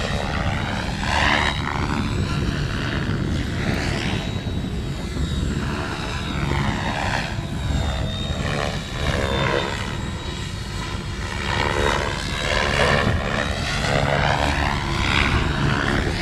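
Radio-controlled model helicopter flying aerobatic set maneuvers. Its rotor and drive make a continuous sound whose pitch sweeps up and down again and again, and the loudness swells and fades.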